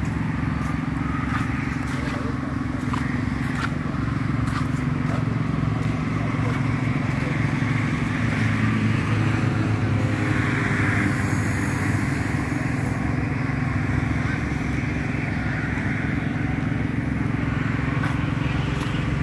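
Steady low hum of motor-vehicle engines running, with traffic noise that swells a little around the middle and a few faint clicks early on.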